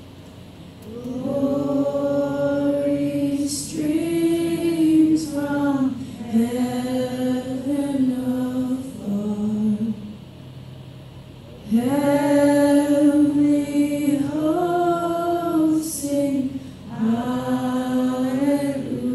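Church worship singing: voices hold long, slow notes in sung phrases, with a short break between lines about ten seconds in.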